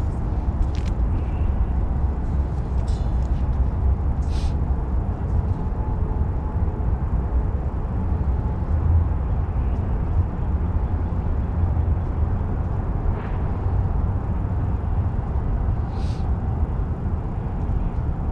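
Steady low outdoor rumble, with a few faint clicks scattered through it.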